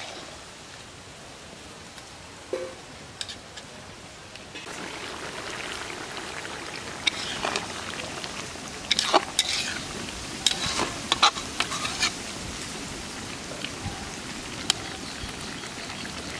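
Fish and potato curry sizzling and bubbling in a pan as it finishes cooking, with a steady hiss that grows louder about four seconds in, and a run of sharp pops and crackles in the middle.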